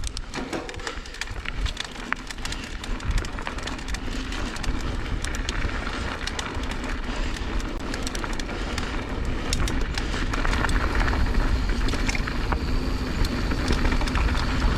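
Mountain bike riding down a loose, slippery dirt trail: tyres rolling and sliding over the dirt, with many small clicks and rattles from the bike, and wind rumbling on the microphone, a little louder from about ten seconds in.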